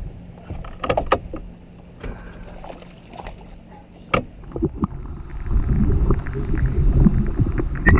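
Water splashing and sloshing, with knocks against a boat, as a hooked fish is brought in and landed. There are a few sharp knocks early on, then a louder, busier stretch of splashing and handling noise over the last couple of seconds.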